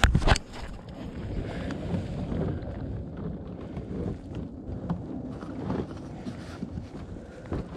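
A Honda portable generator's plastic case clunks as it is grabbed and tipped back at the start. Then comes low, uneven rumbling with small knocks and scuffs while it is held tilted to drain its oil.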